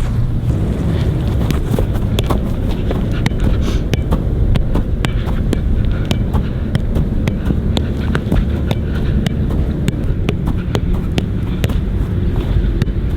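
A player's running footsteps and soccer-ball touches during a training drill: many quick, irregular sharp taps over a steady low rumble of wind on the microphone.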